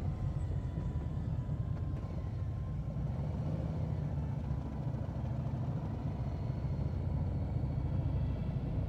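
Harley-Davidson V-twin motorcycle engine running steadily under way: a low, even rumble.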